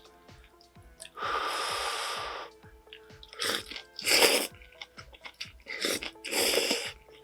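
Close-miked eating sounds: chewing with small mouth clicks, broken by three longer noisy bursts, the first starting about a second in and lasting over a second. Faint background music underneath.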